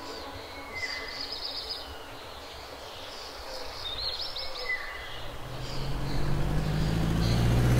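Outdoor ambience with birds chirping twice, a short burst each time. Over the last few seconds a low engine hum fades up and grows louder.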